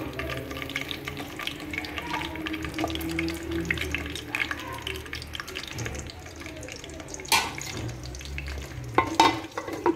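Whole long green peppers sizzling and crackling in hot oil in a pot. There are sharp knocks about seven seconds in and twice near the end.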